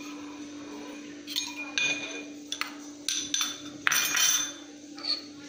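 Metal kitchen utensils clinking and scraping against each other, a spoon against a steel pan or bowl, several times over about three seconds, one strike ringing briefly. This is crushed ginger being added to a pan of water for a kadha.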